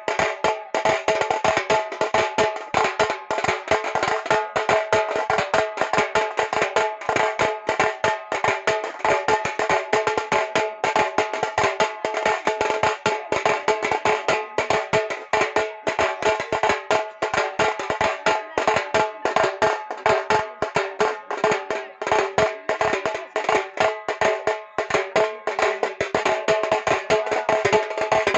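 Fast, continuous drumming accompanying stick play: many sharp strikes a second, with a steady tone held underneath.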